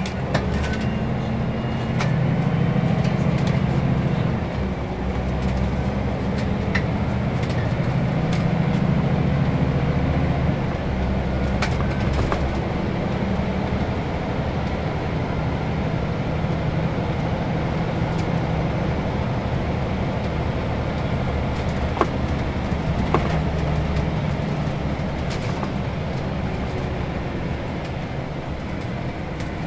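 Inside a moving Scania L94UB 6x2 city bus: the Scania nine-litre five-cylinder diesel runs under way through its ZF automatic gearbox, its note swelling under acceleration a couple of times in the first ten seconds. The bus body adds occasional rattles and clicks.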